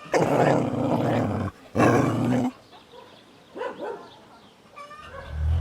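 A dog barking: two loud, drawn-out barks in the first two and a half seconds, then a few fainter calls. A low steady hum starts near the end.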